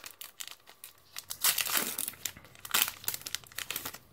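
Foil Pokémon booster pack wrapper being torn open and crinkled by hand, in irregular bursts of crackling.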